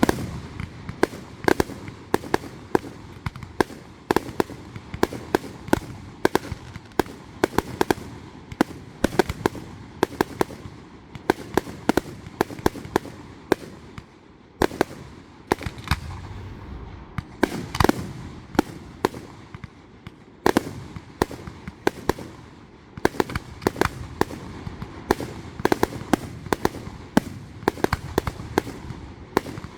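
Fireworks display: a dense run of sharp bangs and pops, several a second, going on without a break.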